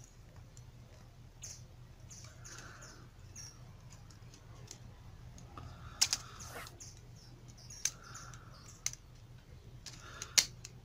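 Pliers and thick copper wire clicking and scraping against a soldering iron's barrel as the wire is wound tightly around it, with a few short squeaky rubs between the clicks. A faint steady hum runs underneath.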